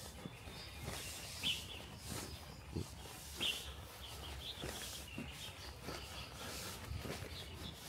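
Short, high bird chirps every second or two over a steady outdoor background, with scattered soft knocks.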